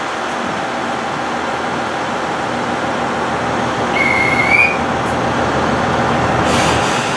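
KiYa 95 diesel track-inspection train running, a steady rumble of engine and wheels on rail that grows slightly louder. A short high rising tone sounds about four seconds in.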